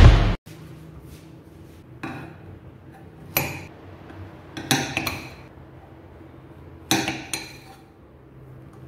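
Large kitchen knife slicing a zucchini lengthwise on a black marble board: about six sharp knocks, unevenly spaced, as the blade cuts through and strikes the stone.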